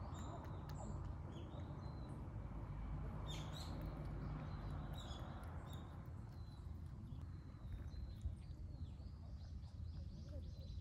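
Scattered short, high chirps of small birds over a steady low background rumble, with a few faint clicks in the first half.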